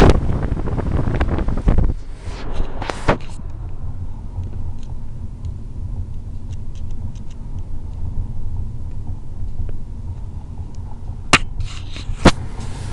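Road and engine noise of a moving car heard from inside, a steady low rumble, with a louder rush of wind on the microphone in the first two seconds. Two sharp knocks sound near the end.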